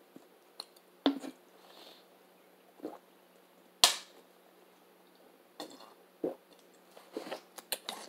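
Thin disposable plastic water bottle being drunk from and handled: scattered clicks and crackles of the plastic with a few gulps, the sharpest crack about four seconds in and a quick run of crinkles near the end.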